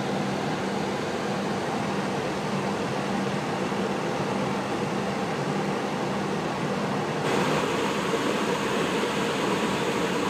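Steady rushing cabin noise of a jet airliner in cruise flight, with a faint low hum under it. About seven seconds in, the noise turns suddenly brighter.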